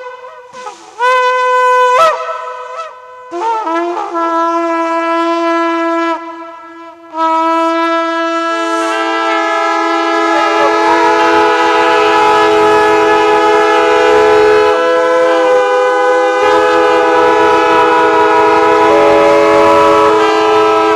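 A group of ceremonial horns blown together. At first come short blasts that scoop up in pitch. From about seven seconds in, the horns hold a long sustained chord, and more voices join around ten seconds in.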